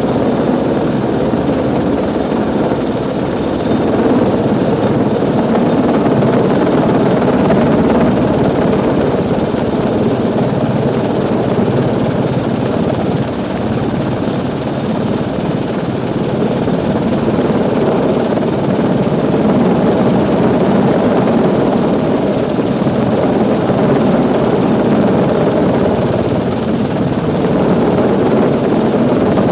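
AgustaWestland AW101 helicopter hovering alongside a ship: loud, steady rotor and turbine noise with a low hum underneath.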